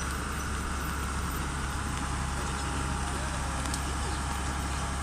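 Komatsu PC200-7 excavator's six-cylinder diesel engine running steadily at an even speed, with a constant low hum.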